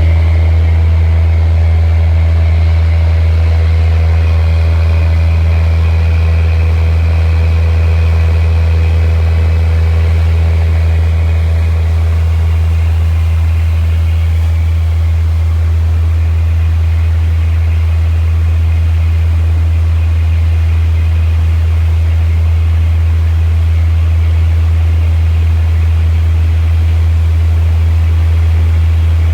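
A gillnet fishing vessel's engine running steadily under way: a deep, constant hum that does not change in pitch or level.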